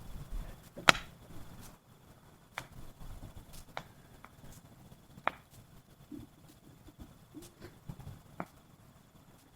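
Wood fire crackling: sharp, irregular pops and cracks, the loudest about a second in and the rest spaced a second or more apart.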